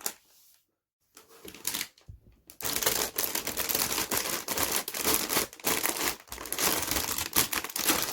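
Plastic-bagged runners of a Bandai High Grade model kit crinkling and clattering as they are handled. There is a brief rustle about a second in, then steady crackling with many small clicks from about two and a half seconds on.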